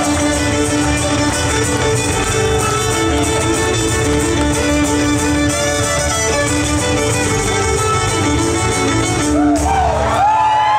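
Live band playing: a fiddle leads over acoustic guitar, upright bass and drums with a steady beat. Near the end the band stops and the crowd starts to shout and cheer.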